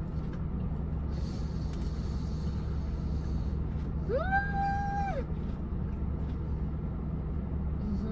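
Steady low hum of a parked car idling, heard from inside the cabin. About four seconds in, a short high whine rises, holds for about a second and drops away.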